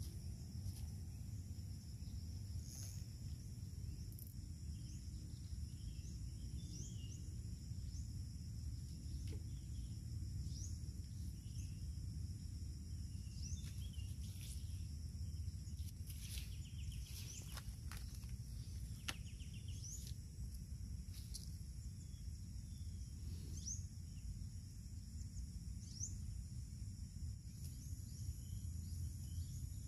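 Outdoor ambience of a steady high insect drone with scattered short bird chirps over a low, steady rumble. A few sharp clicks come in the middle.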